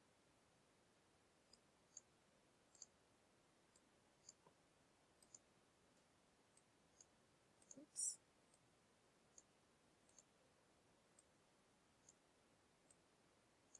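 Faint computer mouse clicks, single and in pairs, every half second to a second, with one louder click about eight seconds in.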